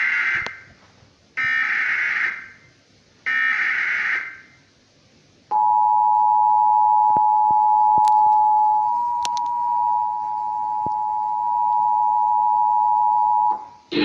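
Emergency Alert System broadcast through a TV speaker: the last of the first SAME header data burst and two more, about a second each, then the EAS two-tone attention signal, a steady dual-pitch tone held for about eight seconds and cutting off near the end.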